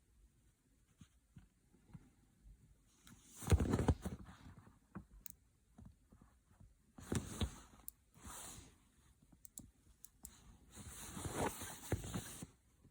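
Handling noise from a seat belt buckle's micro switch contact strip being reshaped by hand: four bursts of scraping and rustling, the last and longest near the end, with scattered light clicks between them.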